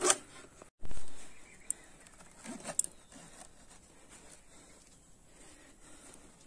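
Knife scraping and sawing into a compressed coco peat (coir) brick, a faint scratchy rasping as fibres are shaved off into a metal bowl, with one louder thump about a second in.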